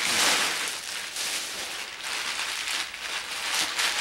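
Plastic bubble wrap crinkling and crackling as it is handled and unwrapped, an irregular run of small crackles, busiest about the first half second.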